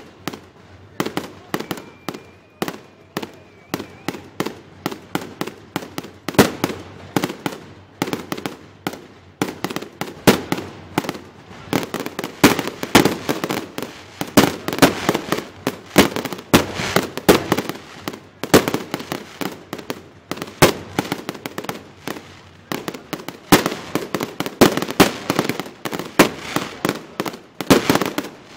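Fireworks display: a continuous barrage of aerial shell bursts and crackling reports, several bangs a second, at its densest in the second half.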